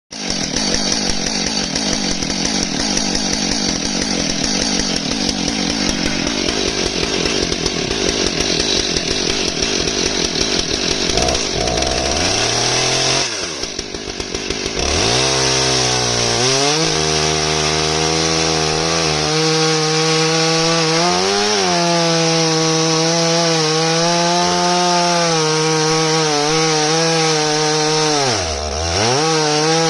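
Stihl MS661 chainsaw running at high revs in a chainsaw mill, ripping through an elm round. The engine note sags and picks back up about halfway through, and briefly again near the end.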